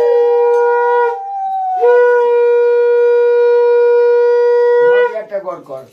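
Conch shells (shankha) blown in long held blasts. A steady note breaks off about a second in and starts again a moment later, holding until near the end. A second, higher conch slides down in pitch before stopping about two seconds in.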